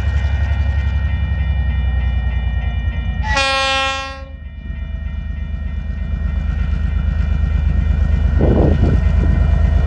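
TasRail DQ class diesel-electric locomotives approaching under power, their engines running with a steady low rumble that grows louder as they near. A little over three seconds in, the lead locomotive gives one horn blast of about a second, the warning for a level crossing.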